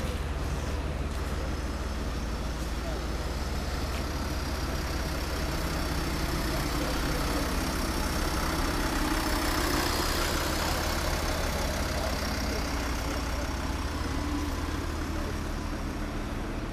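Fire engines and an ambulance idling in a steady low hum, getting a little louder around the middle.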